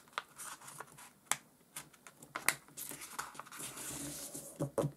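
A sheet of paper being folded over and creased by hand: a few sharp crinkles and taps as it is handled, then a stretch of rustling as fingers run along the fold.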